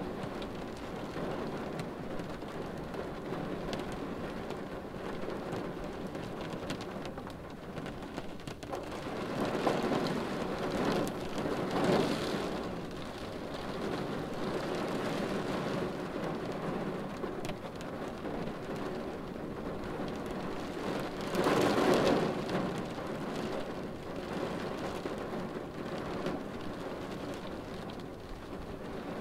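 Steady rain falling on a car windshield, heard from inside the car. The rain swells louder twice, about ten seconds in and again a little past twenty seconds.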